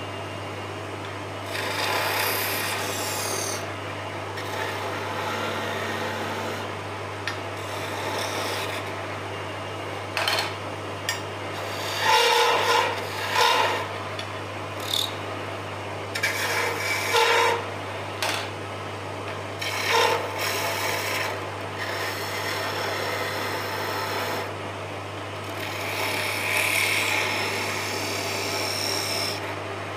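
Lathe running with a steady low hum while hand-held turning tools scrape and cut a spinning wooden spindle, in uneven bursts with several short louder cuts in the middle.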